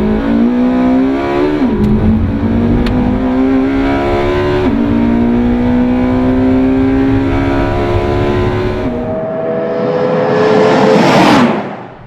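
Porsche 918 Spyder's V8 engine accelerating hard through the gears, its pitch climbing with two upshifts about two and five seconds in. Near the end a rising rush of noise builds and cuts off suddenly.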